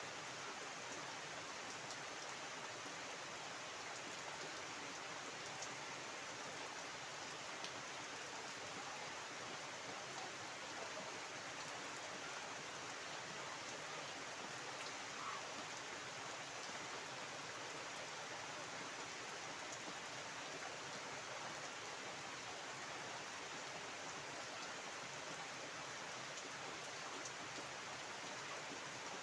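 Heavy rain falling steadily onto standing floodwater and garden foliage: an even, unbroken hiss with an occasional louder single drop.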